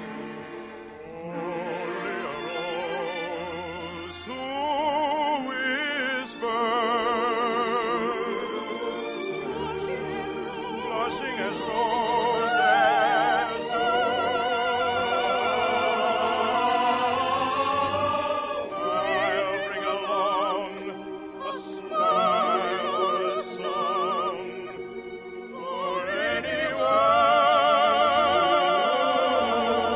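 Operetta singing in a trained, operatic voice with strong vibrato over orchestral accompaniment, in long phrases broken by brief pauses. It is an old radio recording, muffled, with no highs.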